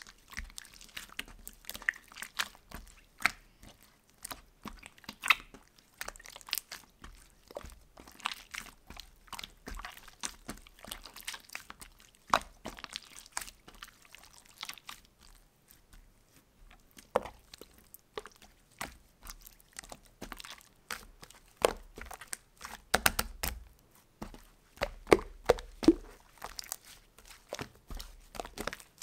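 Clear slime being stretched, folded and squeezed by hand: wet squishing with many irregular sharp clicks and pops of trapped air bubbles.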